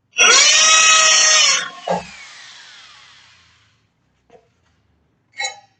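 Old corded hammer drill in hammer mode briefly boring into a concrete floor to mark an anchor hole: the motor spins up, runs for about a second and a half, then is let go and winds down with a falling whine. A knock comes just after the trigger is released.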